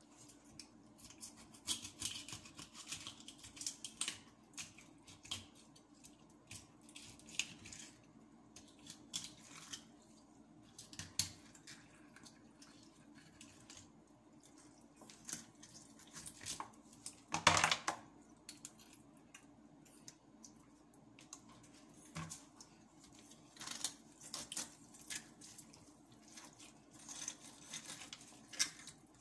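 Kitchen knife scraping and cutting a whole fish on a cutting board as it is scaled and gutted: irregular rasping scrapes and small clicks, with one louder knock about halfway through.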